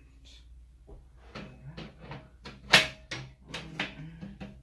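Steel server-rack frame pieces knocking and clanking as they are handled and fitted together, a quick run of knocks with one loud clank about three seconds in that rings briefly.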